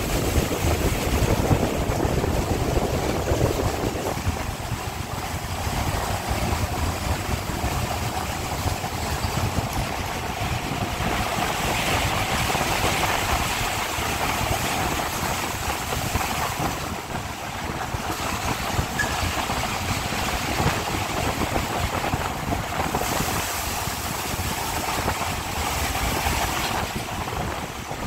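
Gletscherblitz roller coaster train running along its track, a steady mechanical rumble with wind noise on the microphone.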